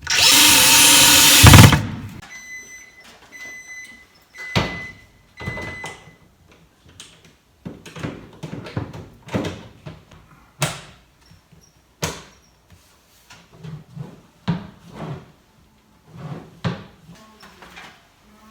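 A loud two-second burst of noise, then a repaired microwave oven beeping about five times in a row, the beeps showing it has power again after a fuse replacement. Scattered knocks and clatter of the oven and its door being handled follow.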